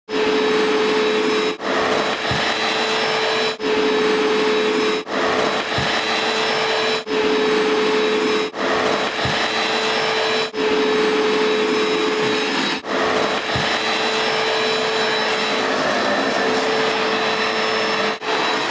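Bissell ProHeat upright carpet cleaner running, rinsing soap out of the carpet with plain water and sucking it back up. A steady motor rush with a constant hum, dipping briefly every couple of seconds.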